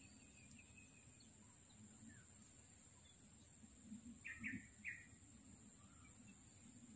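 Quiet outdoor ambience over a steady high hiss, with a bird giving three short chirps about four seconds in.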